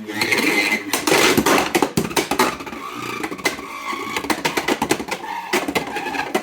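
Beyblade X spinning top whirring at speed in a plastic stadium, with many sharp clacks as it strikes the stadium and other parts.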